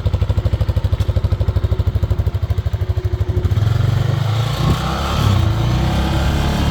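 TGB Blade 600 ATV's single-cylinder four-stroke engine idling with an even, lumpy pulse, then picking up speed about halfway through and running louder and smoother.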